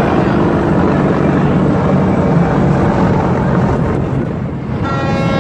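A loud, steady low engine rumble. Near the end a steady pitched tone with several overtones comes in over it.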